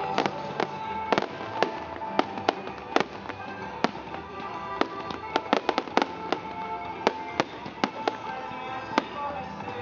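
Aerial fireworks shells bursting in quick, irregular succession: many sharp bangs, some clustered several to a second, over a continuous crackle. Music plays underneath.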